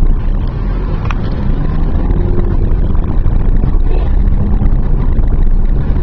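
Car's engine and road noise from inside the cabin while driving slowly: a steady low rumble.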